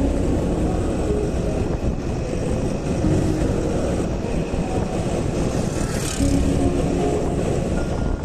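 Vespa 125 scooter's single-cylinder engine running steadily while riding on the road, with road noise.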